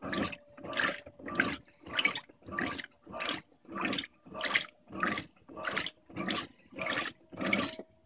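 Electrolux LDD16 16 kg top-load washer agitating a load of blankets on high water level: water sloshing in regular surges about twice a second with each agitator stroke, over a faint steady motor hum. The owner calls this hard agitation at high level a characteristic of the machine, not a defect. A short beep sounds near the end.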